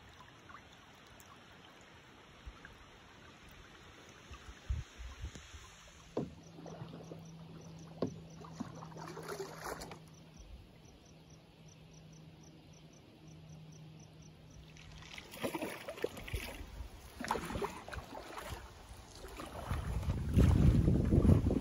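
Kayak paddle strokes dipping and splashing on a shallow river, with water dripping off the blades. The strokes are quiet at first and grow louder near the end.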